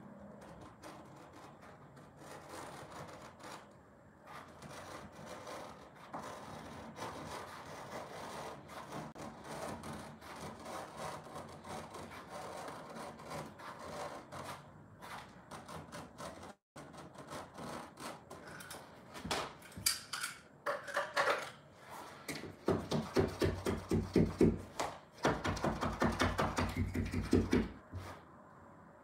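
Carpet being cut in along the wall with a blade: a soft scraping and rubbing of the carpet pile at first, then, about two-thirds of the way through, loud quick repeated cutting strokes through the carpet backing, which stop just before the end.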